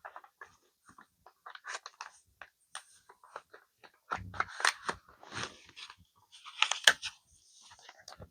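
Paper being handled and creased: dry crinkling and rustling in short, irregular strokes, loudest in the second half.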